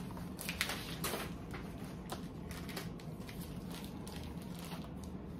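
Handling noise: scattered rustles and light knocks as a plastic CGC comic slab is lifted out of its packaging, over a low steady hum.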